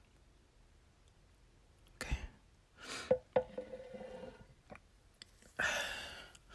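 A woman's breathing: a quiet "okay", a small click followed by a short steady ringing tone, then a long breathy exhale like a sigh near the end.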